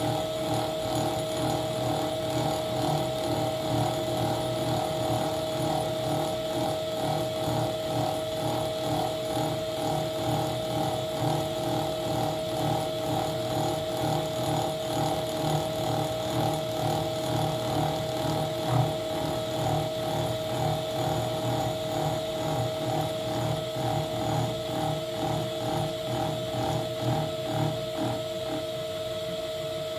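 Vintage Ajax horizontal milling machine taking a cut in aluminium with a 5-inch cutter at about 100 RPM, its spindle driven by a three-phase 8-pole motor on a VFD at 75 Hz. It runs with a steady tone and a regular pulsing from the cut. Near the end the pulsing stops and only the machine's steady running remains.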